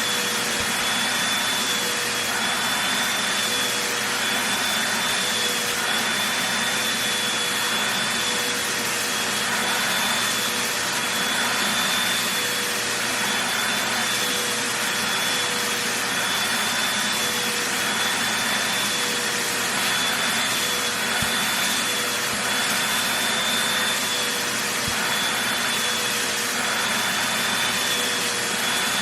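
Vacuum cleaner running steadily over a blanket: a continuous rush of suction air with a steady motor whine that wavers slightly in pitch.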